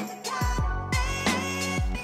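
Background music with a steady beat and deep bass drum hits.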